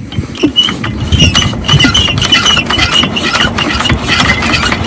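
12 HP diesel water-pump engine being started, getting louder about a second in. It runs with rapid, even knocking and a repeated high squeal.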